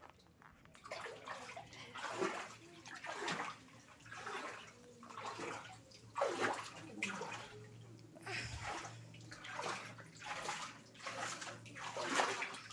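Floodwater sloshing and swishing in repeated surges, roughly once a second.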